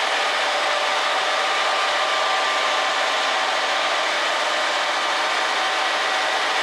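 MAN Roland Cromoman 70 web offset printing press running at production speed, the paper web travelling over its rollers: a steady, even mechanical rush with a few faint constant tones in it.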